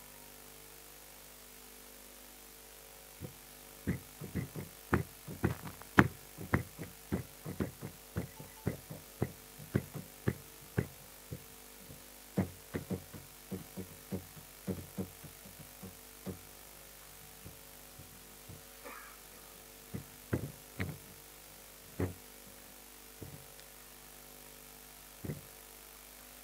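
A marker pen knocking and tapping against a whiteboard as figures are written: a quick, irregular run of short sharp taps, thick at first and thinning out over the second half, over a steady low hum.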